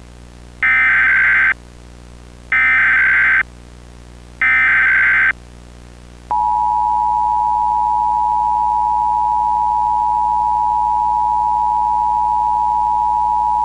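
Emergency Alert System broadcast tones announcing an emergency alert. Three short bursts of warbling SAME header data, about a second each, come first. About a second after the last burst the steady two-tone EAS attention signal starts and keeps sounding.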